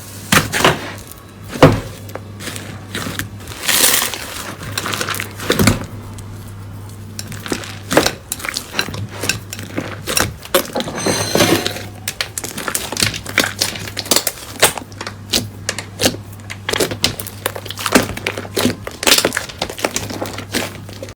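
Slime being pressed and worked, giving irregular crackling, clicking and popping, with louder snaps scattered through.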